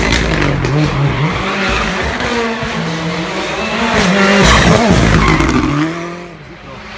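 Ford Fiesta rally car engine driven hard, its pitch rising and dropping several times with gear changes and lifts of the throttle. It is loudest as it passes about four and a half seconds in, then fades away near the end.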